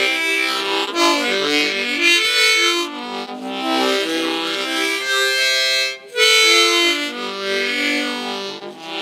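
Harmonica playing a melody with chords, the notes moving in short phrases, with a brief break about six seconds in.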